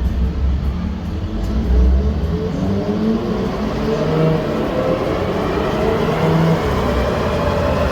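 Mercedes-AMG C43's twin-turbo V6, fitted with upgraded turbochargers, running under load on a chassis dyno during a tuning pull. It starts as a low rumble, then its pitch climbs steadily from about three seconds in as the revs rise.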